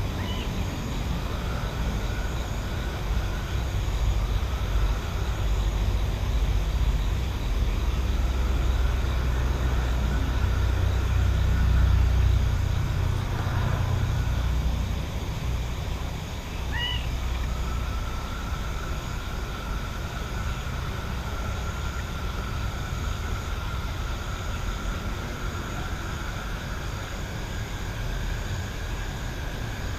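Countryside night ambience: a low rumble that builds to a peak about twelve seconds in and then eases off, over a faint steady high tone, with one short chirp about seventeen seconds in.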